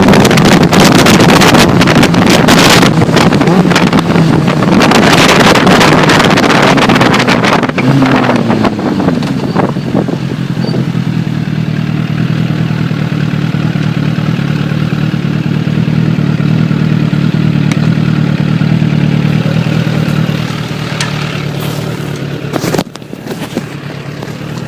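Suzuki Bandit 600's inline-four engine through a D&D slip-on exhaust, heard from a rider's backpack. The first part is buried in heavy wind noise at riding speed; about eight seconds in the engine note shifts, and after that the engine runs steady at low revs with much less wind.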